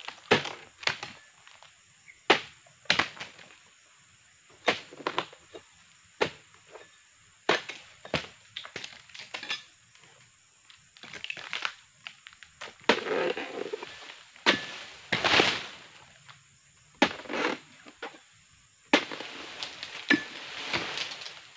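Dodos, a chisel-bladed pruning pole, chopping into the frond bases of an oil palm: a series of sharp strikes at irregular intervals, about one every second or two. Several longer rustling crashes come from cut palm fronds falling and being dragged.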